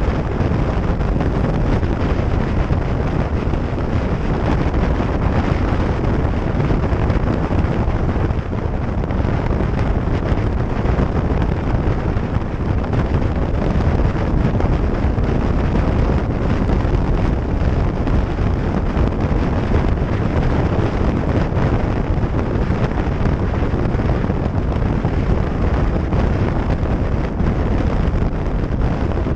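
Steady wind noise buffeting the microphone of a camera on a motorcycle cruising at motorway speed, with the bike's running and road noise blended underneath.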